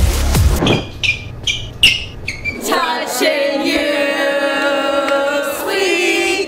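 Electronic dance music with heavy bass and a stuttering beat, giving way a little under halfway through to long held notes sung by a group of voices.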